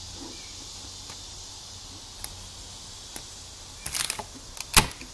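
Steady low hum and hiss with a few faint ticks, then a short cluster of light clicks and one sharp tap about four to five seconds in, from hands handling a clear acrylic sheet while taping it with packing tape.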